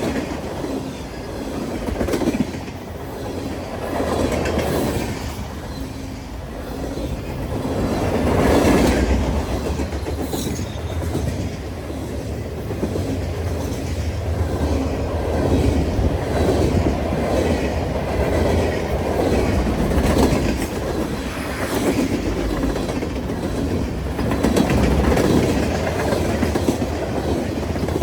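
Train cars rolling past, their wheels clacking over the rail joints over a continuous rumble that swells and eases every few seconds.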